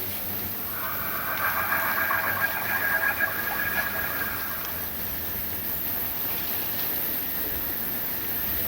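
A raspy, snore-like sound from the sky, starting about a second in and lasting about four seconds before fading. It is one of a series that comes about every four seconds.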